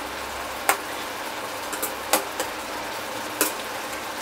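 A steel ladle stirring a tomato gravy in a stainless-steel kadai, clinking against the pan about four times over a steady sizzle from the cooking gravy.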